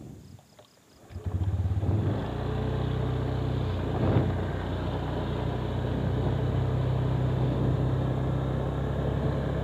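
Motorcycle engine starting about a second in and then running steadily as the bike moves off. A few faint high pips come just before it starts.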